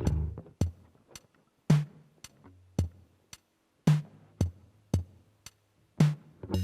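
Slow drum-machine beat from a Casio CT-6000 keyboard's rock rhythm preset, kick, snare and hi-hat hits, with a few low bass notes under it.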